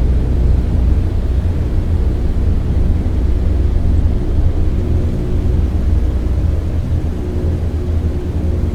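Steady airplane cabin drone: a constant deep rumble with a hiss on top and faint steady hum tones, unchanging throughout.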